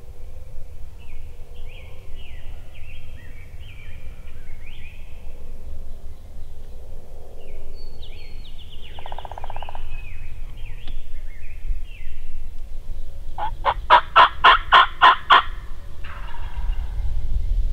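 Wild turkey gobbler gobbling once: a loud, rapid rattling gobble about three-quarters of the way through. Fainter short chirping calls come before it.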